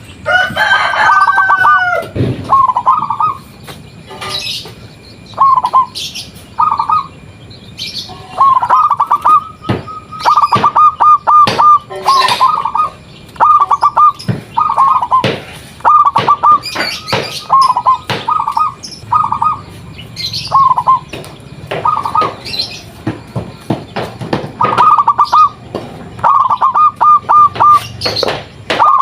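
Zebra doves (perkutut) singing: short trilled coo phrases repeated every second or two. A rooster crows once near the start, and sharp clicks are scattered through.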